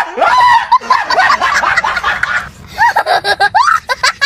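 Hearty laughter, then high-pitched squealing laughter from a small child, starting about three seconds in.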